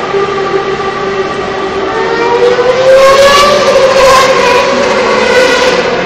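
A Formula One car's 2.4-litre V8 engine at high revs, its pitch rising as it accelerates down the straight. It is loudest about three to four seconds in and then fades, with a steady engine drone underneath throughout.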